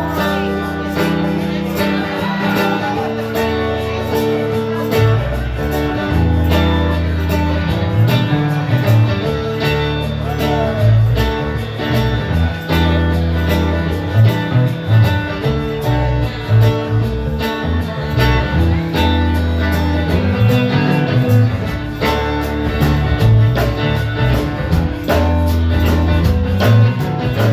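Band playing live: guitar over a bass line and drums keeping a steady beat.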